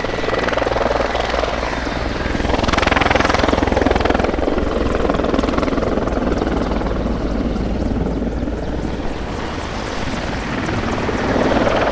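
Mil Mi-24 Hind attack helicopter flying past low overhead: twin turboshaft engines and main rotor, a steady low rotor drone under a rushing noise. The noise swells loudest about three seconds in, eases off, and builds again near the end.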